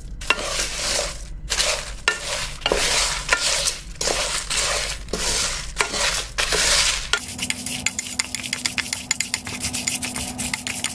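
Whole dry garam masala spices (bay leaves, cinnamon sticks, cumin and coriander seeds, peppercorns) stirred with a wooden spatula in a dry steel pot, scraping and rustling in repeated sweeps as they are dry-roasted on low heat. About seven seconds in the sound changes to a dense run of fine rapid ticking with a faint steady hum.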